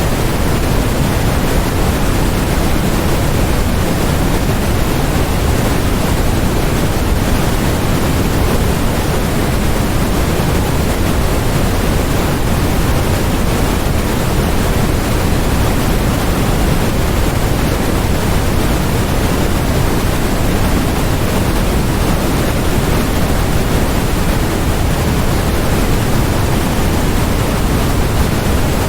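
Steady synthetic noise from a focus-and-study noise track: an even, unchanging hiss that is heavier in the low end than in the highs.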